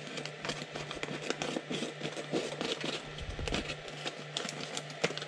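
Foil pouch crinkling and rustling as it is handled and cut open with scissors: irregular crackles with a few sharper clicks.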